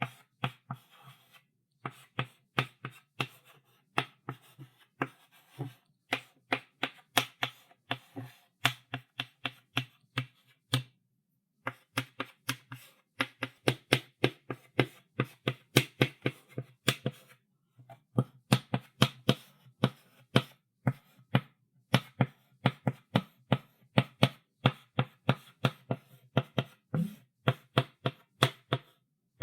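Chalk writing on a blackboard: a quick run of chalk taps and short strokes, about three a second, broken by a few brief pauses.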